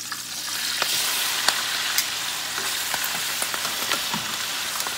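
Pork belly deep-frying in hot oil, sizzling with many sharp crackles and pops of spattering oil as the pieces are turned with tongs. The sizzle swells about half a second in and then holds steady.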